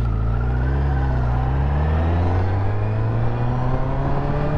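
A 2021 Honda CBR1000RR's inline-four engine pulling under acceleration, its pitch rising steadily through one gear from about a second in.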